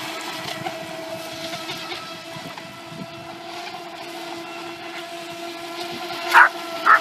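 Electric motor of an RC model speedboat, powered by a 6S battery, running flat out with a steady high whine that gets fainter as the boat draws away. A dog barks twice near the end.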